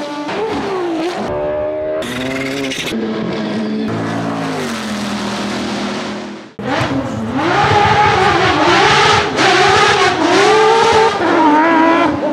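Race car engines revving and changing gear with pitch gliding up and down, cutting off abruptly about six and a half seconds in. The Porsche 997 GT3 rally car's 3.6-litre flat-six then takes over louder at high revs, its pitch rising and falling repeatedly as it is driven hard.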